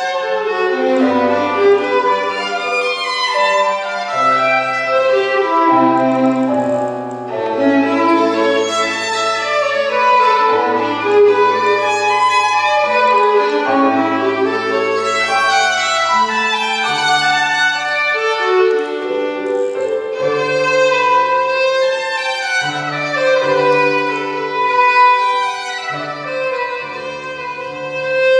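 Violin playing a melody with electronic keyboard accompaniment, the keyboard holding low bass notes and chords beneath it.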